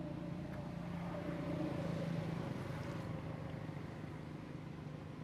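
A distant engine droning steadily, growing louder to a peak about two seconds in and then easing off, as if passing by.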